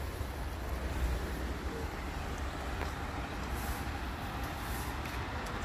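Diesel garbage truck engine running at a distance, a steady low rumble.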